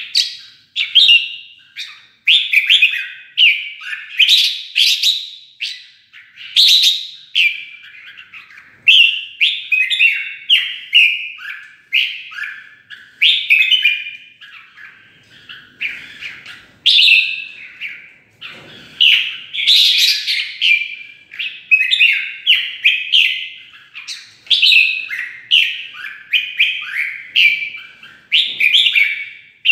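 Red-whiskered bulbul singing its loud, rapid competitive song, short warbled whistled phrases following one another almost without a break.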